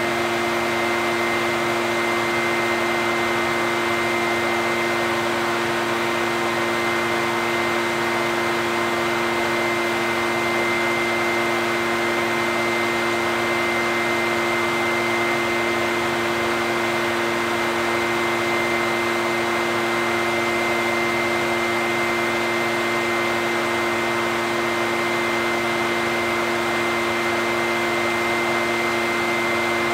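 Echo backpack leaf blower's two-stroke engine running at a steady speed, with a steady whine over the rush of air.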